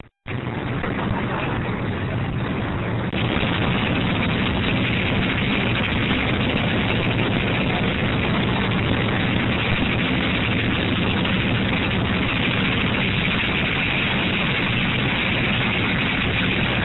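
Go-kart engine running under heavy wind rumble on the camera microphone, steady and loud, with the wind noise rising about three seconds in.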